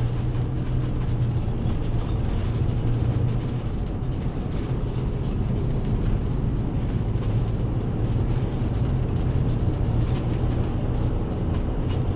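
Steady engine and road noise inside a moving vehicle's cab: an even low drone that holds level throughout.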